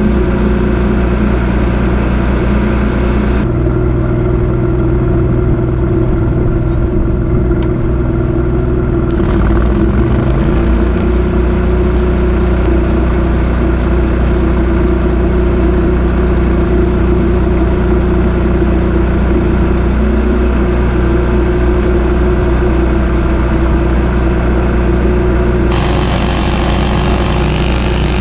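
A portable engine-driven welder's engine running steadily, its pitch shifting slightly about ten seconds in and again about twenty seconds in. A harsh hiss joins near the end.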